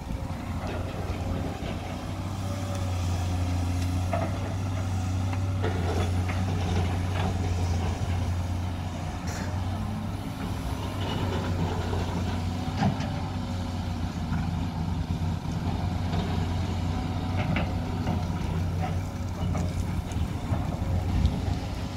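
SANY SY215C excavator's diesel engine running steadily as it digs and swings, a constant low drone with a few short knocks and clanks scattered through.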